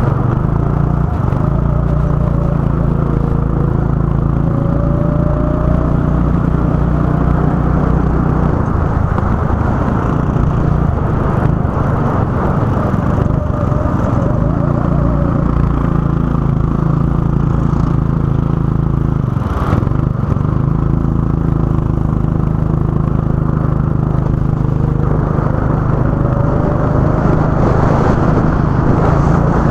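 Go-kart engine running continuously on track. Its note holds steady, shifts about nine seconds in, and dips briefly just before twenty seconds before picking up again.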